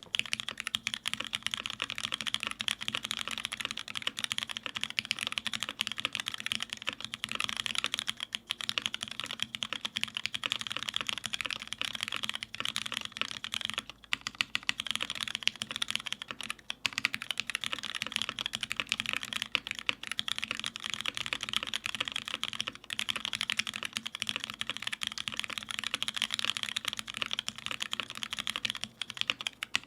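Continuous fast typing on a mechanical keyboard with lubed linear Cherry MX Black switches in a full aluminium plate, X-Ring mounted with no dampening, and GMK keycaps. The keystrokes are dense, with a few brief pauses.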